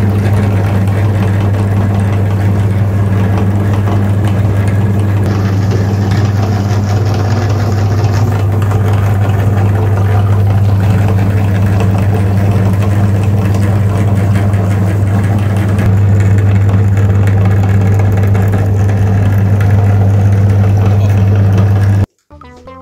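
A motor running steadily: a loud, even drone with a strong low hum, cutting off abruptly near the end.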